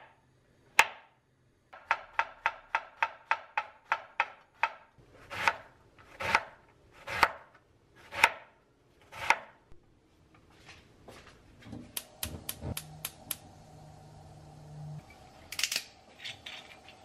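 Chef's knife cutting mushrooms and onion on a wooden cutting board: a quick run of light cuts, about three to four a second, then slower, heavier chops about one a second. Near the end a low steady hum comes in, with a few clinks.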